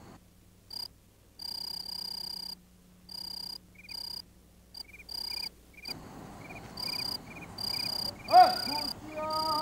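Crickets chirping in on-and-off pulses of a high, steady trill, with a second, softer chirp repeating every half second or so through the second half. Near the end comes a loud short animal call that rises and falls in pitch, then a longer call held on one pitch.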